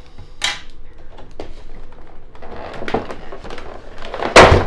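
Stiff clear plastic packaging knocking and scraping as a toy quadcopter with plastic prop guards is worked loose from its moulded tray, with a loud plastic clatter just before the end.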